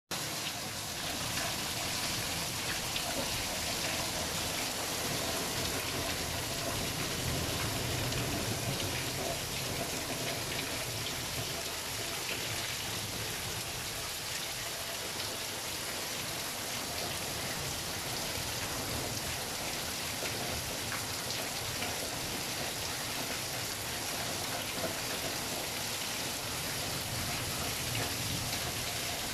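Steady rain falling and splashing, with water streaming down off a roof edge.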